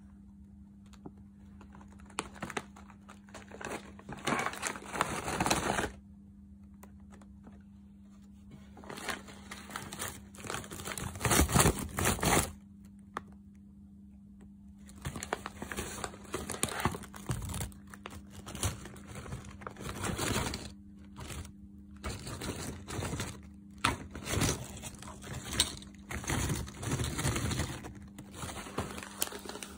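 Calbee potato chip bag crinkling in bursts as it is handled, with a louder tearing rustle about two-thirds of the way through the first half as the foil-lined bag is opened. Later the bag rustles on and off as ridged potato chips are shaken out of it onto a plate.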